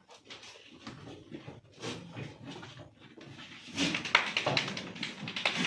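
Black Bengal goats calling with short bleats, louder in the second half, over rustling and knocking as they feed.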